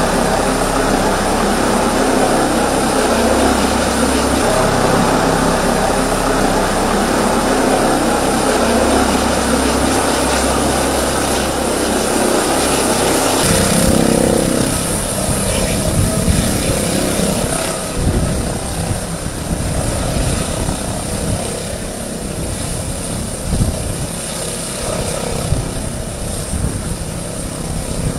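Helicopter coming in to land, its rotor and turbine running steadily. About halfway through, as it hovers low and settles onto the pad, the sound turns to an uneven, gusty rumble, with the rotor still turning after touchdown.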